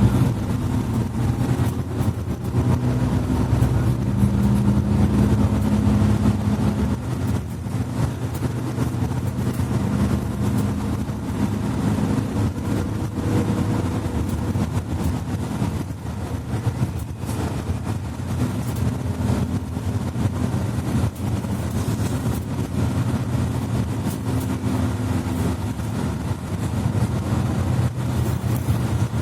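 Interior running noise of a Mercedes-Benz Citaro C2 articulated bus under way: its diesel engine and Voith automatic transmission hum steadily, shifting in pitch now and then, with occasional short knocks and rattles.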